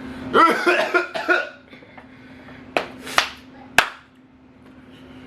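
A person coughing and spluttering from the chili burn of very spicy noodles, followed by three short, sharp knocks about a second and a half later.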